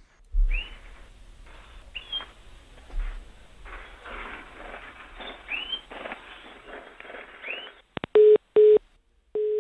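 Caged bird chirping heard down a telephone line, a few short upward chirps over a scratchy line hiss. About eight seconds in, the call drops: loud short telephone beeps at one pitch, then a steady tone just before the end.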